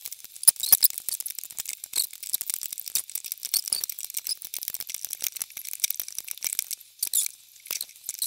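Rubber bands being looped up on a band loom with a hook: many quick small clicks, snaps and scrapes, with a brief lull near the end.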